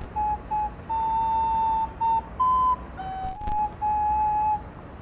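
A recorder playing a slow, simple melody of single held notes. Most notes sit at one middle pitch, with a short step up near the middle and a step down after it.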